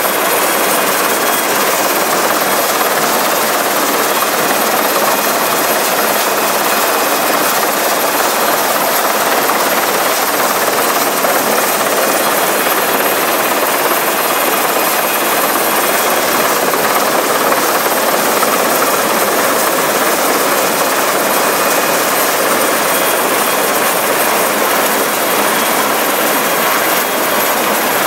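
Coast guard search-and-rescue helicopter hovering close overhead: steady, loud rotor and turbine noise.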